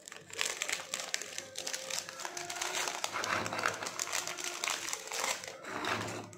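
Plastic Parle-G biscuit wrapper crinkling as biscuits are pulled out of the packet by hand and set into a bowl, with many small crackles and clicks. It dips briefly near the end before one last burst.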